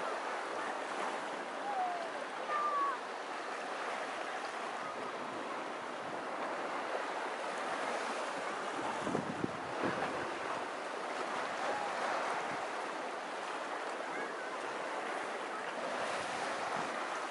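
Small sea waves washing steadily onto a sandy beach, with a few short chirps in the first few seconds.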